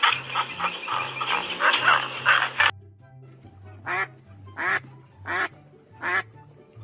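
A dense, fast-pulsing chatter that cuts off sharply about three seconds in, then four separate duck quacks, short and evenly spaced about 0.7 s apart. A low bass line of background music runs under everything.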